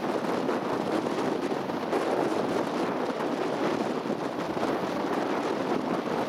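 Storm wind in gusts of up to 100 km/h blowing hard across the microphone: a loud, steady rush that swells and dips slightly throughout.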